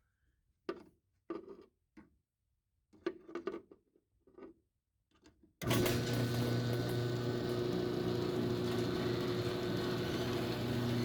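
A few short knocks and rustles, then about halfway through a LiftMaster garage door opener's electric motor starts suddenly and runs with a steady hum.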